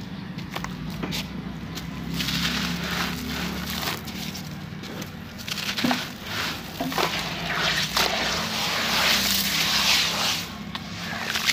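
Hands crushing a dry sand-cement block: gritty crunching and crackling as it crumbles, with the grit falling into a basin of water. Near the end the hands rub and swish the wet grit in the water.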